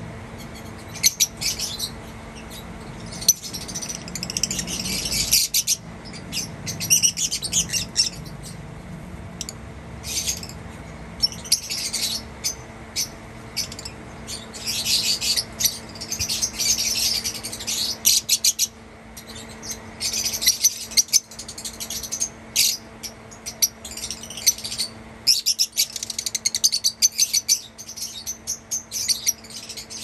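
Lovebirds chirping in rapid, high-pitched bursts that come and go, with a few sharp clicks among them, over a faint steady low hum.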